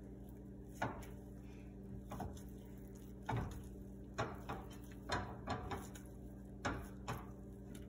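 A plastic meat chopper jabbed down into raw ground sausage in a frying pan: about ten irregular soft knocks as it strikes the pan, over a faint steady hum.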